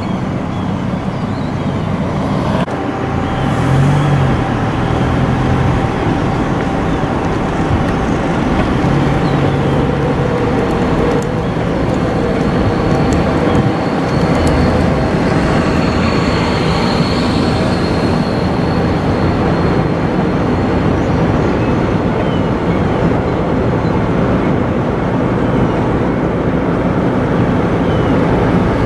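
Motor vehicle running: steady engine and road noise with a low hum.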